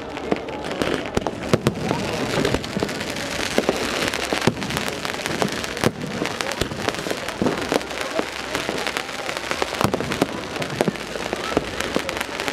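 New Year's fireworks: a dense, continuous barrage of many overlapping bangs and crackles.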